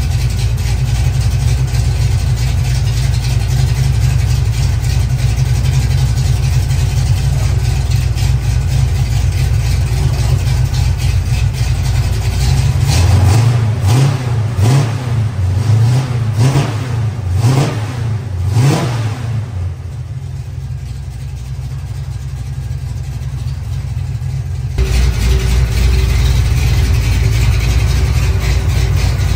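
Chevrolet small-block V8 with a new four-barrel carburetor idling steadily as it warms up on its first start in a long while. About halfway through the throttle is blipped about six times in quick succession, each rev rising and falling, and then it settles back to a quieter idle. Near the end the idle is suddenly louder again.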